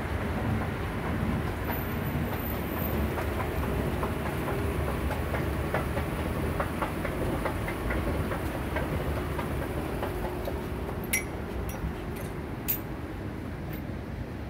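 Steady low rumble of a passing vehicle, with a run of light clicks in the middle and two sharper clicks near the end.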